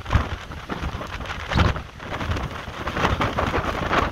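Heavy surf breaking and churning against coastal rocks, a dense rushing wash with surging crashes, mixed with gusts of wind buffeting the microphone.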